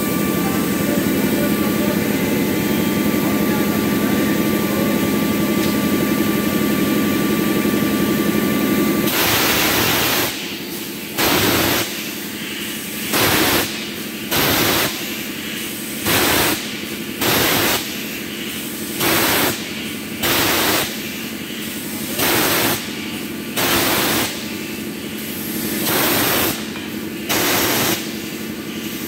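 A steady machine hum, then from about nine seconds in loud bursts of hissing air, each about half a second to a second long, coming every one to two seconds and often in pairs, from a large multi-cylinder Mirrlees Blackstone diesel engine during its starting sequence.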